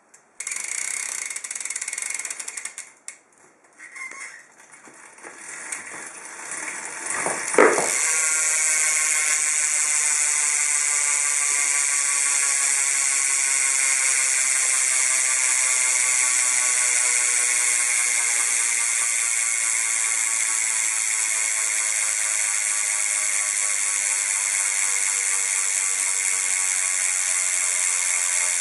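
Shadow Raptor BMX cassette rear hub freewheeling, its pawls ratcheting in a fast, high buzz. Short bursts at first, then the wheel is spun hard about seven seconds in and coasts, the buzz slowly falling in pitch as the wheel slows.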